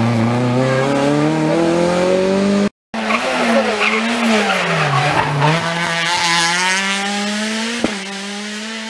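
Rally car engines in a hairpin. First one pulls away with rising revs. After a short break a second one drops its revs into the bend and then accelerates out with a steady climb in pitch, with tyre squeal and a sharp click near the end.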